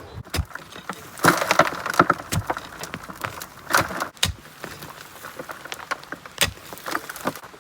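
Hand digging in rocky soil: a digging tool strikes and scrapes through dirt and stones in irregular knocks and short crunching scrapes, loudest a little after a second in.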